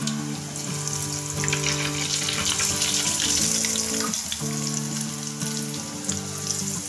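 Hot oil sizzling around potato cheese balls deep-frying in a kadai, swelling louder for a couple of seconds in the middle. Soft background music with held notes plays underneath.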